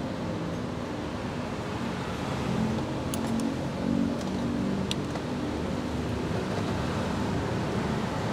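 Steady road traffic noise from a busy street, with a few faint clinks of a metal spoon and fork against a ceramic soup bowl.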